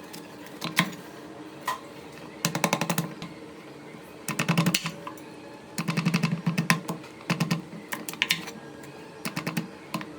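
Knife chopping pumpkin into pieces: several short runs of quick, sharp taps with pauses between them.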